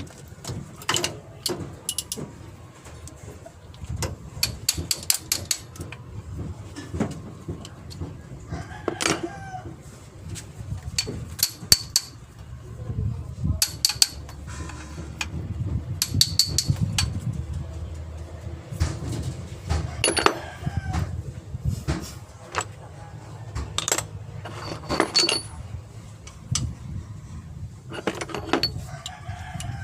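Irregular sharp metallic clinks and knocks, some ringing briefly, of hand tools and metal parts being handled during an engine teardown, over a steady low rumble.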